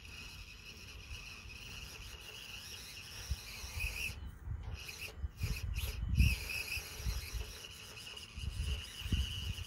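Axial SCX24 mini RC crawler's small electric motor and gears whining steadily as it creeps up a steep rock face, with its tyres scraping and rasping on the rock. Low irregular thumps come and go, loudest a little past halfway.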